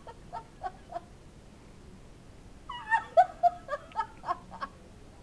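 A woman laughing in high-pitched fits: a few short gasps of laughter in the first second, then a longer burst of laughter about three seconds in. She is giddy from hospital medication.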